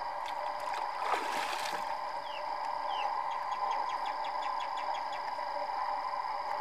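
Water splashing and sloshing as a man wading waist-deep handles a fishing net, with the biggest splash about a second in, over a steady hum. A bird gives two short falling chirps, followed by a quick run of ticks.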